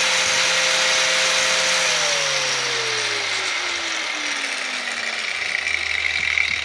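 Bosch GWS 700 mini angle grinder running unloaded at full speed. About two seconds in it is switched off, and its pitch falls steadily over about three seconds as the disc spins down.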